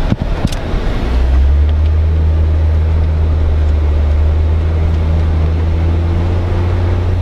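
Jeep engine running at a steady speed, a strong low drone, after a couple of short knocks just at the start.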